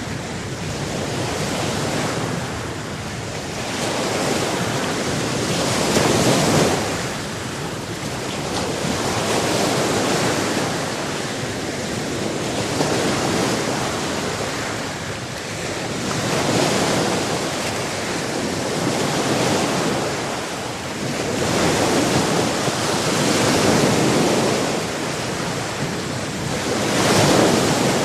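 Sea surf: waves breaking and washing in, the rush swelling and falling back every few seconds over a steady wash of water noise.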